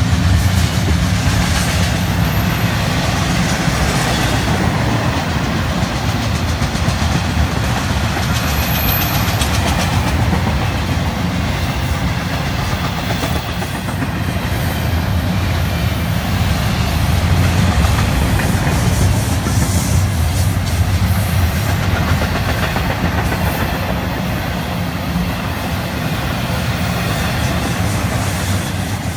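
Double-stack intermodal freight cars rolling past: a loud, steady rumble of steel wheels on rail, laced with fast clicking and clatter.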